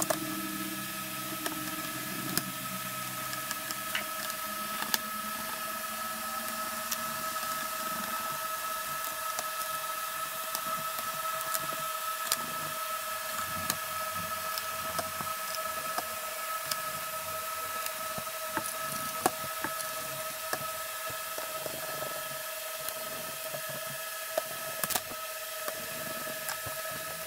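Faint clicks and taps of a graphics card being reassembled by hand, heard scattered over a steady hiss and a constant high hum.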